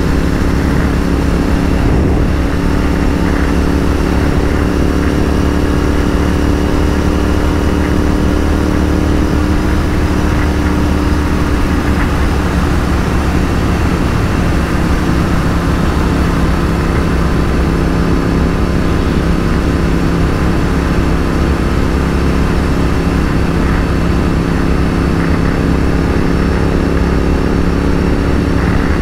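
Royal Enfield 650 parallel-twin motorcycle engines running steadily at highway cruising speed, the engine note holding nearly constant with slight drifts in pitch, over wind rushing on the microphone.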